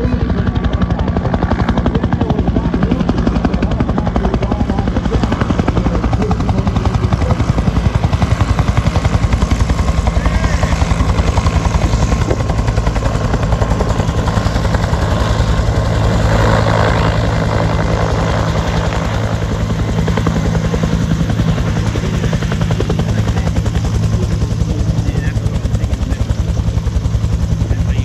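Bell UH-1 Huey helicopter running, its two-blade main rotor beating at a steady rapid rate over the turbine as it flies low past and settles to a hover just above the runway.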